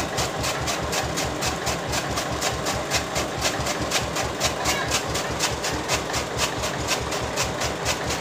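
Old tractor engine running at a steady, even beat of about five to six pulses a second. It drives a chaff cutter by a belt off its rear wheel, with green fodder being fed in and chopped.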